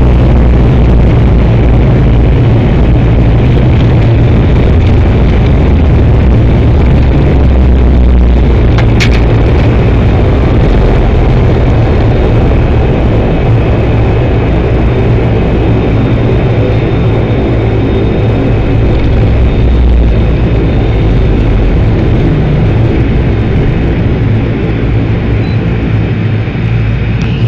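Turboprop airliner's engine and propeller running on the landing roll, heard inside the cabin beside the wing: a loud, steady low drone.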